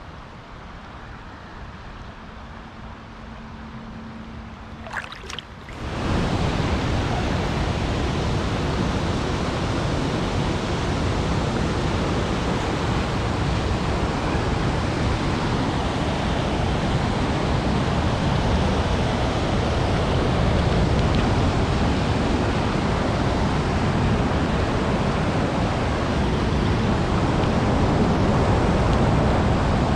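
Steady rushing of river rapids, starting abruptly about six seconds in and loud from then on. Before it, quieter flowing water with a few short clicks.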